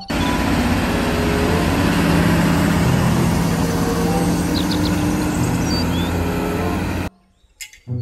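Heavy diesel machinery running with a steady low drone: a Liebherr crawler excavator on a lowboy semi-truck. The sound cuts off abruptly about a second before the end.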